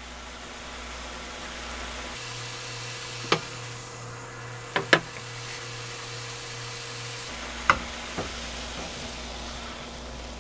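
Thickened chili-flake and soy-sauce glaze bubbling and sizzling in a nonstick frying pan, a steady soft hiss. A few short sharp clicks or taps come in the middle.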